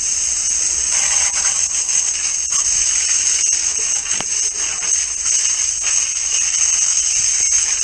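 High-pressure water jet spraying down into a drain chamber: a steady hiss of spray spattering on the chamber walls.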